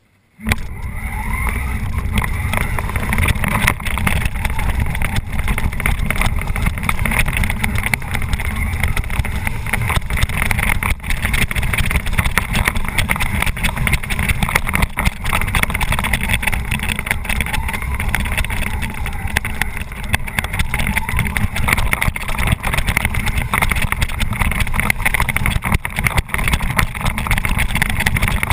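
Tamiya Bullhead RC monster truck heard from its onboard camera: electric motors and gearboxes whining with a steady rattle and rumble as it drives over rough ground, running on almost empty batteries. It starts suddenly about half a second in.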